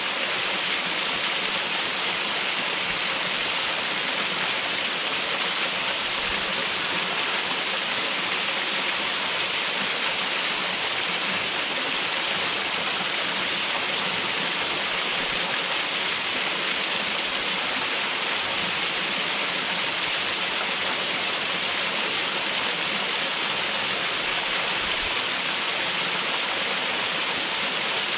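Waterfall pouring steadily: an even rush of falling water, mostly a high hiss, that holds constant without change.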